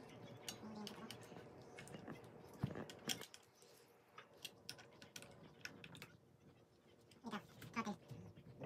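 Faint, scattered clicks and light taps of hands handling the electric scooter's rear wheel and brake parts, the sharpest about three seconds in. A faint voice sounds near the end.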